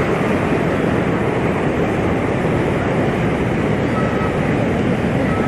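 Sea waves washing onto the shore: a steady, unbroken rush of surf.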